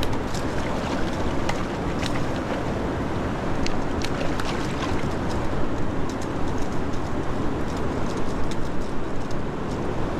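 Steady rushing of river water flowing over rocks, with small splashy ticks scattered through it.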